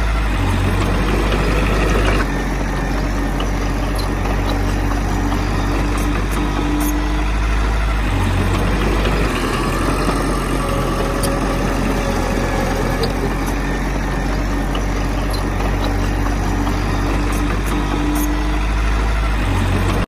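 Heavy diesel earthmoving engine running steadily at a low, even pitch, with a sudden change in the sound about two seconds in.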